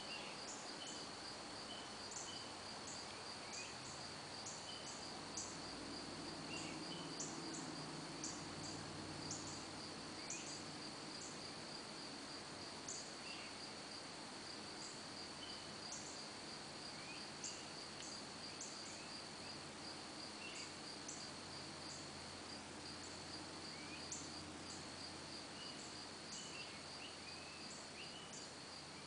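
Evening insect chorus: a steady high-pitched trill with short, irregular higher chirps over it. A faint low rumble rises through the middle and fades again before the end.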